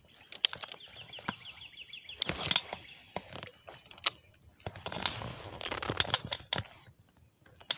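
Fishing rod and baitcasting reel handled in a kayak: scattered sharp clicks and knocks, with a rustling stretch about five seconds in. A rapid high trill runs briefly from about half a second in.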